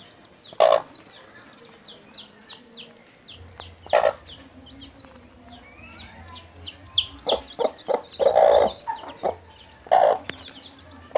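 Chickens clucking: loud single calls at intervals and a busy run of clucks a little past halfway, over a continual patter of short, high, falling peeps.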